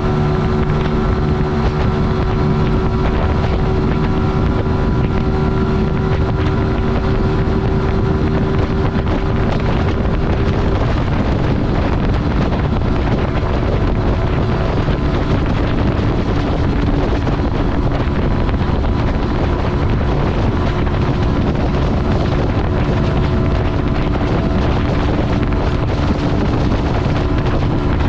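125 cc single-cylinder motorcycle engine running at a steady speed under heavy wind rush on the microphone; the engine note drops to a lower pitch about ten seconds in.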